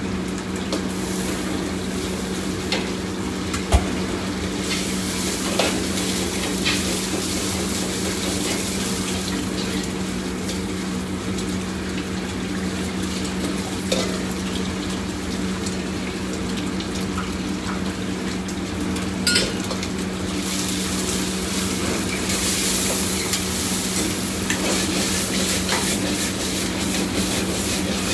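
Stir-frying in a wok on a restaurant wok burner: food sizzling and frying in the hot wok while a metal ladle stirs, scrapes and knocks against the wok now and then, over a steady low hum.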